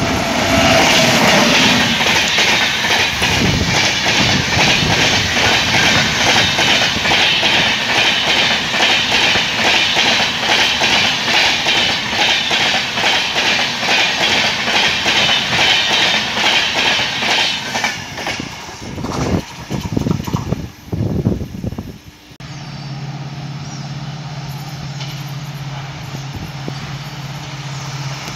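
An electric-hauled passenger train rushing past at speed close by: a loud rush of wheel and rail noise with rapid clickety-clack over the rail joints, then gusts of wind buffeting as the last coaches go by. A little past the middle it changes abruptly to a quieter steady low hum as another electric locomotive approaches from a distance.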